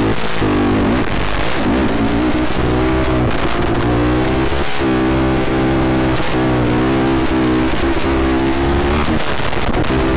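Sport quad (ATV) engine revving up and down, its pitch rising and falling several times, with background music playing over it.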